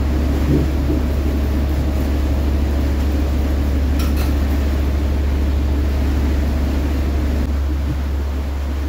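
Boat engine running steadily, a loud low drone throughout, with a brief click about four seconds in.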